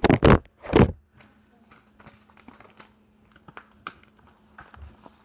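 Two loud bumps of handling noise on the phone's microphone in the first second, then faint scattered taps and knocks over a steady low hum.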